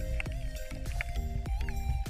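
Background music with a steady beat and sustained synth tones.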